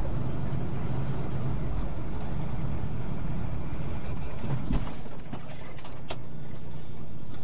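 Heavy truck's engine running steadily while it is pulled up a gravel grade on a tow strap, heard from inside the cab. About two-thirds of the way in there is a clunk, the engine sound drops a little, and a few clicks follow.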